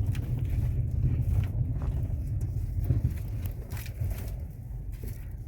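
Ford Fusion's front suspension knocking with a repeated 'ploc-ploc' clunk as the car drives over rough, potholed road, over a steady low road rumble. It is loud excessive suspension noise that other shops blamed on the hydraulic steering rack.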